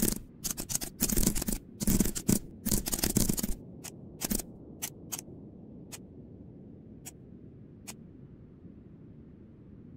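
Computer keyboard typed in fast, rapid keystrokes for about three and a half seconds, then a few separate single clicks spaced out over the next few seconds, over a faint steady hum.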